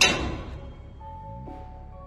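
Background music: held tones with a loud hit at the very start that fades away over about half a second.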